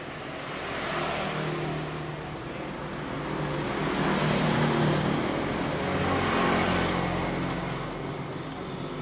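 Mitsubishi electric sewing machine running under its motor, speeding up and slowing down as the foot control is worked, with a whirring hum that rises and falls in pitch and loudness.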